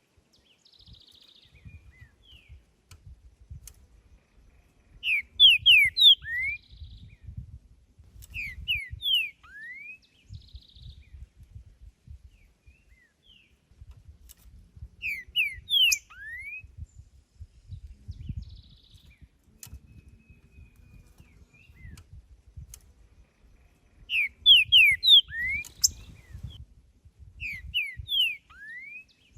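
Green-winged saltator (trinca-ferro) singing: five short phrases of clear, quickly sliding whistled notes, a few seconds apart, over a low rumble.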